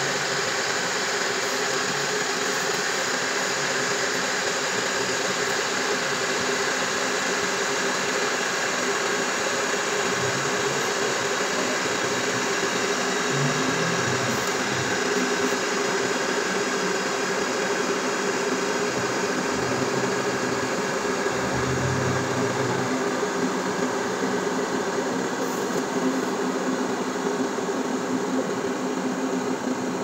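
Hodekt electric kettle heating water: a steady rushing hiss, with low rumbling that comes and goes in the middle as the water heats toward the boil.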